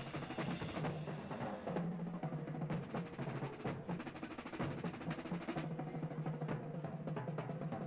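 Drum and bugle corps playing, with the drums to the fore in fast rolls and strikes over a low sustained pitched part. The bright, busy top end eases about two seconds in and picks up again after about five and a half seconds.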